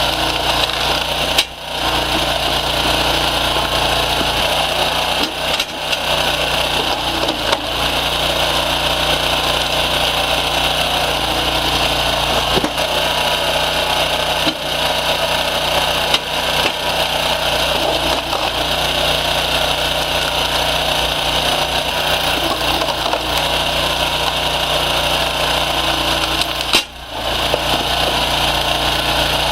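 Engine-driven wood-processing machinery running steadily, with occasional short knocks.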